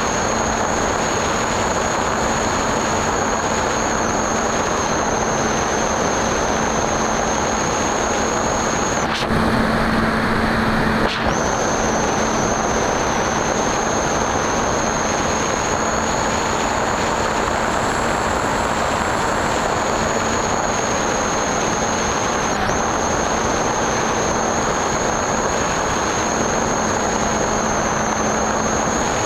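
Onboard audio of a Skyhunter FPV plane in flight: a steady rush of wind over the airframe, with the electric pusher motor and propeller giving a steady high whine and a low hum. The sound changes briefly about nine seconds in and ends that change with a short click.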